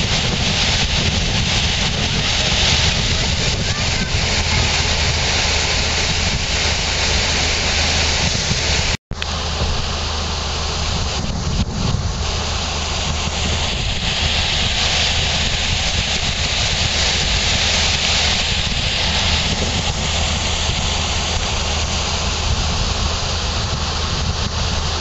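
Canal lock filling: water from the open gate paddles gushing and churning into the lock chamber as a loud, steady rush. The sound drops out for a moment about nine seconds in.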